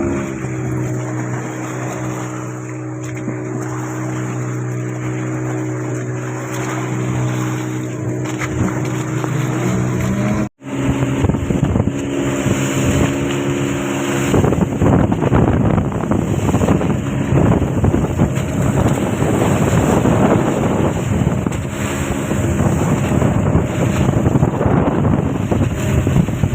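A boat engine running steadily under way. After a sudden break about ten seconds in, wind buffeting the microphone and splashing waves take over, and the engine fades into the background.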